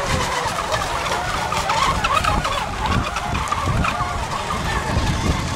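Several electric radio-controlled racing hydroplanes running at speed: a wavering high whine from their motors and propellers that rises and falls in pitch as the boats turn. Wind rumbles on the microphone.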